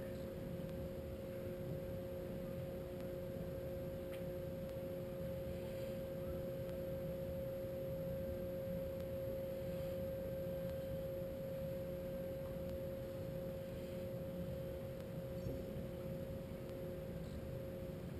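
A steady machinery hum: one constant high tone with a fainter lower one over a low rumble.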